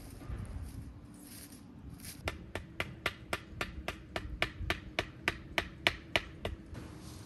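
A tent stake being hammered in: about seventeen quick, sharp strikes at nearly four a second, starting about two seconds in and getting louder toward the end.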